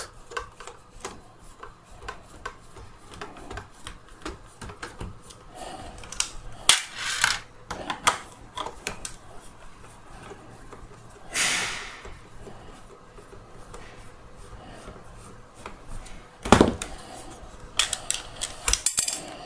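Small clicks and taps of a screwdriver backing Phillips screws out of a Dyson V10 cordless vacuum's plastic handle housing and of the plastic being handled. There is a short scraping rustle about eleven seconds in, and one sharp knock, the loudest sound, a few seconds before the end, followed by more clicking.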